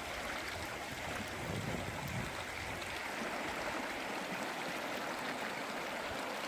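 A small mountain brook running over rocks: steady rushing and babbling of flowing water.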